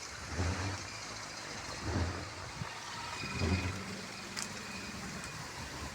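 Strong gusty wind, blowing in low rumbling swells on the microphone about every second and a half over a steady rushing hiss. A faint steady hum runs through the second half, and there is one sharp click near the end.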